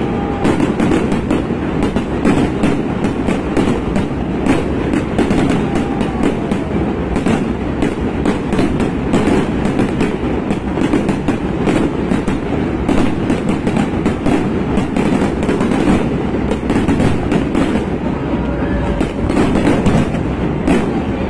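Fireworks crackling and popping without a break, a dense rapid run of small bangs over a steady rumble, as a display goes off with heavy smoke.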